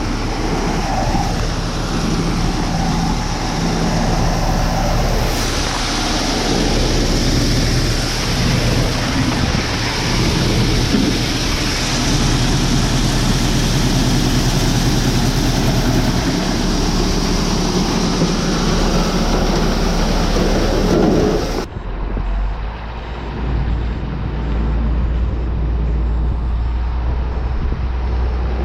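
A large engine running steadily under loud, even mechanical noise. About three-quarters of the way through it cuts off abruptly, replaced by a low rumble of wind on the microphone.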